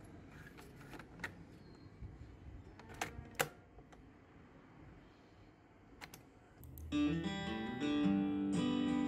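Plastic clicks from a Playskool toy cassette player as a cassette is loaded, the door snapped shut and a key pressed. About seven seconds in, acoustic guitar music starts and keeps going.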